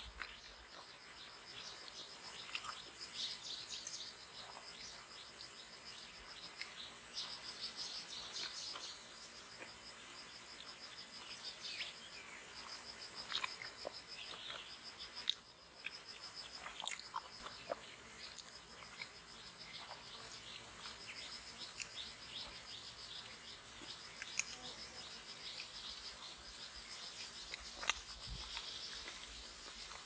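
Bamboo-forest insect chorus: a steady high whine and a fast pulsing, cricket-like trill that comes and goes, with short bird chirps scattered throughout.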